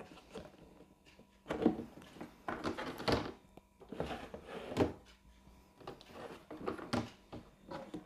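Plastic drawer of a stacking storage cabinet being slid out and pushed back in, with a series of hollow plastic knocks and clatters, the sharpest about one and a half, three, five and seven seconds in.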